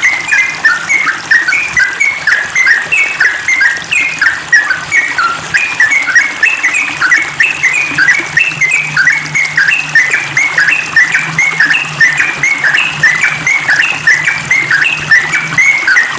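Yellow-vented bulbul (trucukan) singing a fast, unbroken run of short chattering notes, several a second, in the rapid 'ropel' style used as a training song to draw other bulbuls.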